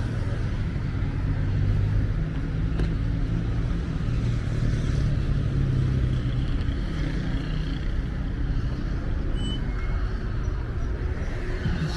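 City street traffic: car engines and tyres making a steady low rumble.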